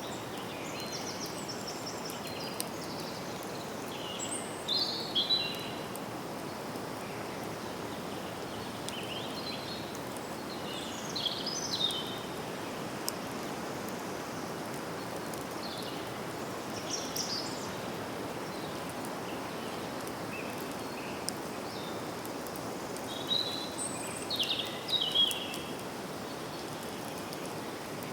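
Forest ambience: birds sing short chirping phrases every few seconds over a steady background hiss.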